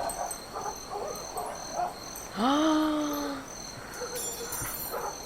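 Crickets chirping steadily in a fast, even pulse, with a single long, low hoot about two and a half seconds in that lasts about a second.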